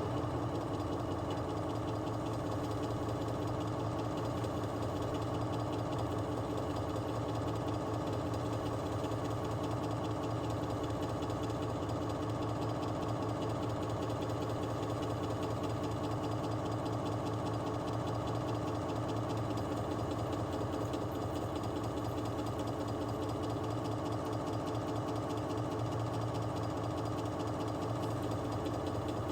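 A machine running steadily with a low hum.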